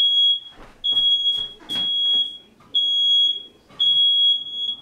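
Smoke alarm sounding: a loud, high, piercing beep about half a second long, repeating roughly once a second.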